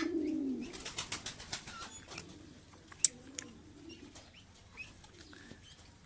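Domestic pigeons cooing, a low wavering coo loudest in the first half-second and coming back more faintly through the middle. A single sharp click about three seconds in.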